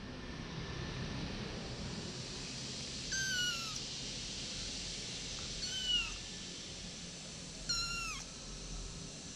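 A one-month-old kitten meowing three times, a couple of seconds apart: short, high calls that each fall in pitch, over a steady hiss.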